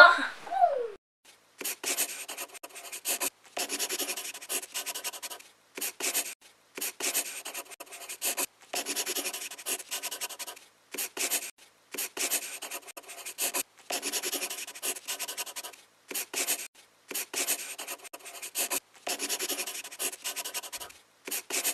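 Scratchy writing sound effect, like a pen scribbling on paper, in bursts of one to two seconds with short breaks between them.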